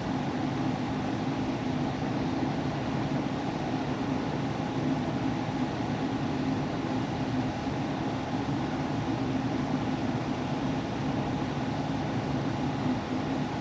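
Soldering fume extractor fan running with a steady, unchanging hum.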